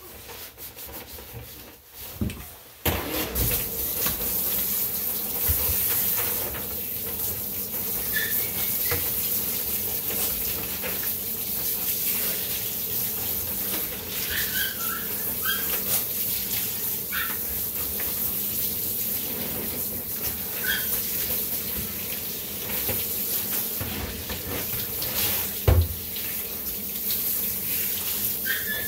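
Water from a handheld shower sprayer running into a bathtub, turned on suddenly about three seconds in and then running steadily.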